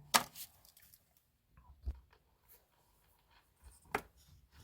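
Light handling noise: a sharp click, a low knock and another click, spread a second or two apart, with faint scratching between them, as small steel parts and tools are handled on a bench.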